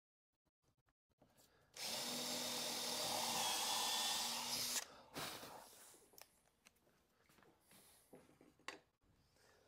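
Power drill running for about three seconds, starting and stopping abruptly, followed by a few light knocks.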